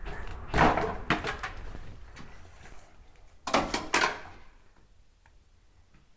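Demolition knocks and clattering of broken masonry as old wall material is banged out, in two loud bursts about a second in and about three and a half seconds in, then quieter.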